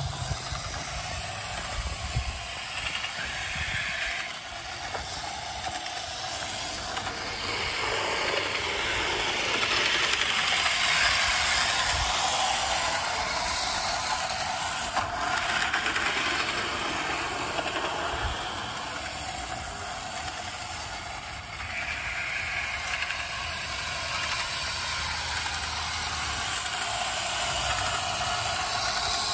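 O gauge model train running on an elevated outdoor track: a steady metallic rattle and hiss of wheels rolling over the rails. It grows louder twice as the train comes close.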